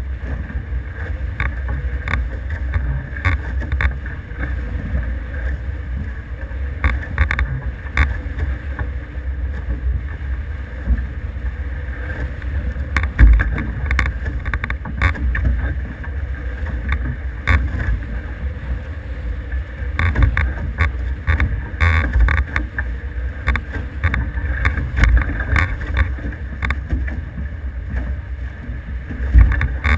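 Wind rumbling on the microphone aboard an F18 racing catamaran under sail, with frequent short, sharp slaps and knocks from water against the hulls.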